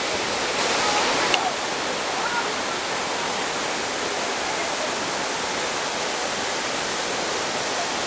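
Waterfall: a steady, even rush of falling water, slightly louder for a moment about a second in.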